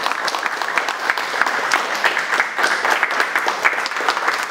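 A group of people applauding: many hand claps overlapping into a steady, even round of applause.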